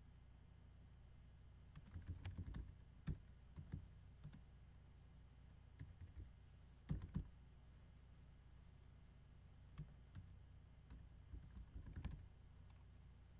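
Faint typing on a computer keyboard: short runs of key clicks with pauses between them.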